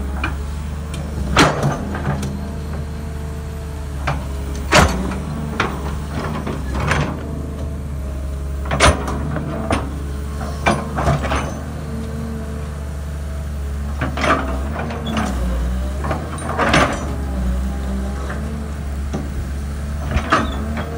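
Tracked hydraulic excavator's diesel engine running steadily under load while the bucket digs into dry, hard soil, with sharp clanks and knocks at irregular intervals as the bucket teeth strike and scrape the ground.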